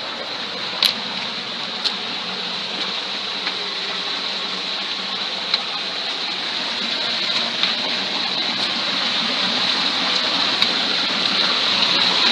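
Stream water running over stones, a steady rushing that grows slowly louder towards the end, with a few sharp taps here and there.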